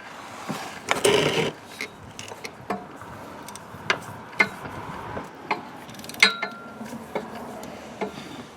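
3/8-inch drive ratchet turning a socket through a swivel and long extension, with irregular clicks and metal clinks as a starter mounting bolt is backed out, and a louder scrape about a second in.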